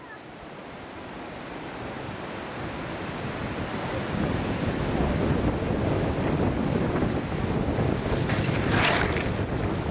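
Wind buffeting the camera microphone, a low rumbling rush that builds over the first four seconds and then stays loud, with a few short crackles near the end.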